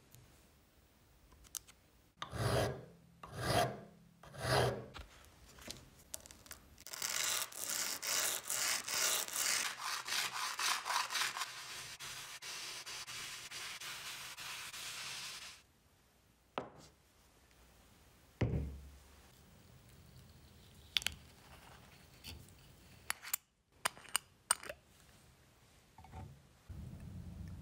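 A part rubbed by hand back and forth on a sheet of sandpaper: a fast, dense rasping scrape that settles into a steadier hiss and stops abruptly about halfway through. Three separate scrapes come before it, and a few clicks and knocks follow.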